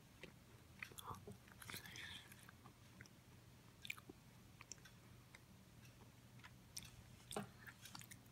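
Faint crackling and crunching of a dry, crumbly nut biscuit being broken apart by hand and chewed. The crackles come in scattered bits, busiest about two seconds in, with a few sharper snaps near the end.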